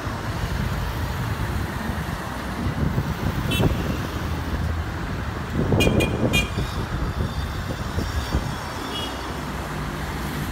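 Steady broad jet noise of a Boeing 777-200ER's two engines climbing out overhead, blended with street traffic. Short high chirps or toots come once about a third of the way in, then three in quick succession around the middle.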